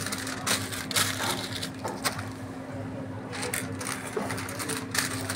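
Paper burger wrap crinkling and rustling as it is handled and folded around a burger, in several short spells of crackle, the sharpest about half a second, one second and two seconds in and again near the end. A steady low hum runs underneath.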